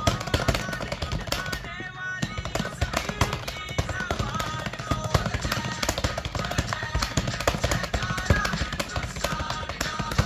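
Fast typing on a computer keyboard: a rapid, uneven run of key clicks, with background music over it.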